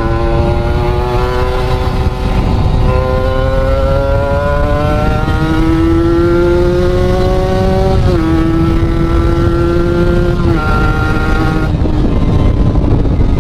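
Kawasaki Ninja RR's 150 cc two-stroke single, on a Mikuni VM28 carburetor, pulling under throttle. Its pitch climbs slowly and drops sharply twice, about eight seconds in and again about ten and a half seconds in, as it shifts up through the gears.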